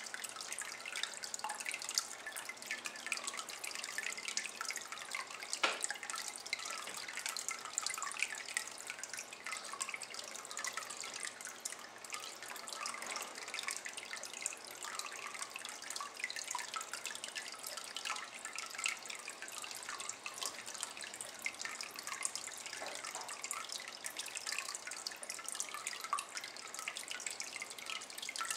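A thin stream of water trickling into a shallow ceramic basin of water, a steady run of small irregular drips and splashes, with one sharper plop about six seconds in.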